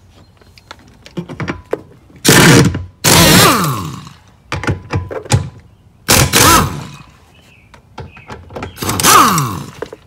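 Cordless power driver with a 15mm socket running the front seat-mounting bolts out of the floor. It runs in four short bursts, two close together and then one every few seconds, and the motor winds down in pitch each time the trigger is released. Small clicks of the socket on the bolts come between the bursts.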